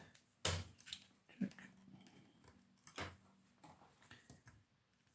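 A few sharp clicks and knocks of test probes and small parts being handled on a workbench, the clearest about half a second in and about three seconds in.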